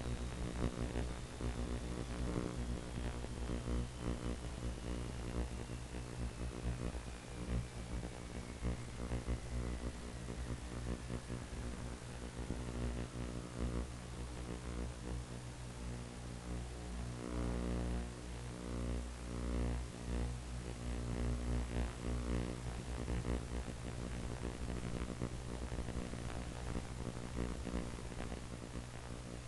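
Brushless electric motor and propeller of an RC plane droning steadily in flight, with a hiss of static over it. A faint thin whine falls slowly in pitch over the first half.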